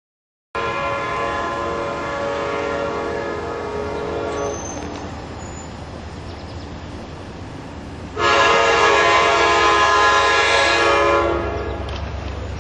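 Locomotive Nathan K5LA air horn on a MARC commuter train running through the station without stopping. It sounds in two long, steady blasts, the second louder and shorter, with the rumble of the passing train between and after them.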